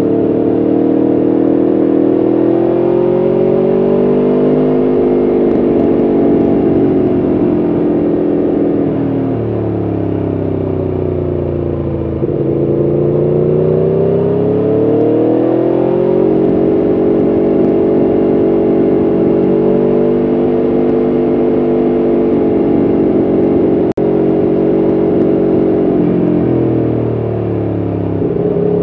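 Aprilia Tuono V4 1100RR's V4 engine running under load. Its pitch climbs and falls several times as the bike accelerates out of bends and rolls off into them, holding steady for a stretch in the middle.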